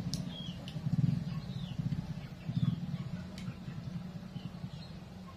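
Small birds chirping in short, high, scattered chirps, some falling in pitch, over a low rumble that swells twice and then eases.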